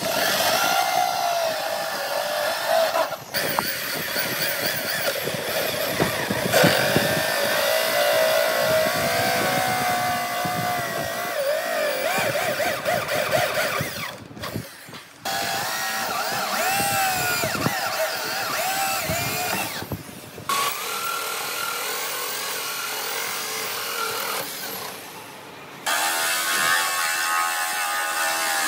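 Corded electric drill driving a hole saw through pine: the motor whines and its pitch wavers and sags as the saw bites into the wood. It stops briefly a few times between holes.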